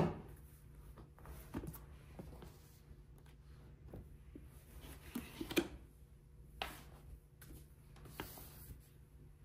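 Quiet room tone with a steady low hum and scattered light taps and clicks, the clearest about five and a half seconds in.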